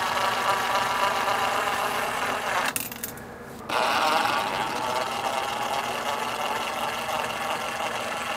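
DeWalt cordless drill running to back the screws out of a boat transducer's mounting bracket on the hull: two long runs of a steady motor whine, with a brief stop about three seconds in.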